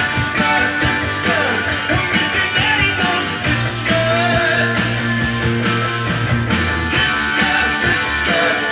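A rock song with guitar and singing, played from a vinyl record on a Dual 1237 belt-drive turntable with an ADC cartridge.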